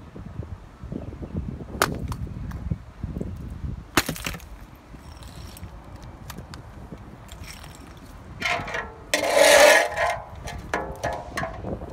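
A frozen block of ice is smashed against concrete, with two sharp cracks and small ice pieces clinking. Near the end, the loudest sound: a metal pan is scraped and set down on the concrete, with a ringing scrape.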